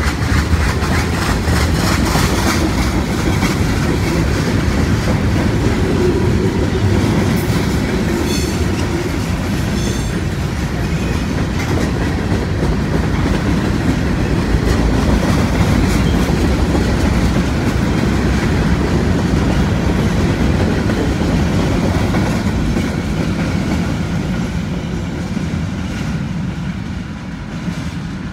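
Freight train cars rolling past at close range: a steady rumble of steel wheels with rhythmic clacking over the rail joints, and a few brief high squeals about eight seconds in. The sound fades over the last few seconds as the end of the train passes.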